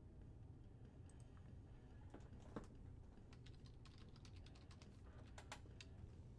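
Faint computer keyboard typing: scattered, irregular key clicks, most of them in the second half, over a low steady room hum.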